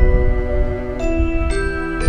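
Background music: bell-like mallet-percussion notes over sustained tones, with new notes struck about one and one and a half seconds in, and a low rumbling noise underneath.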